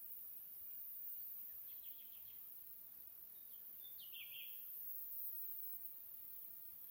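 Faint birdsong in a forest: a few short high chirps about two seconds in, then another short phrase with a downward glide around four seconds, over a steady high hiss.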